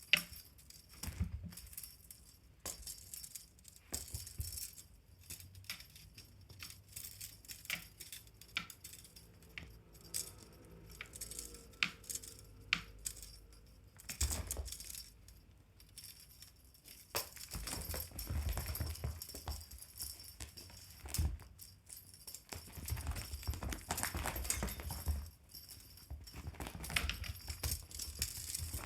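Jingling and rattling of a fishing-rod pet teaser toy, with scattered knocks and scuffling as it is batted and pounced on.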